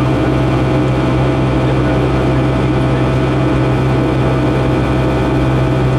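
Boeing 757-200's Pratt & Whitney PW2000 turbofan engine running at climb power, heard inside the passenger cabin: a steady drone with a strong low hum and a few higher steady whining tones.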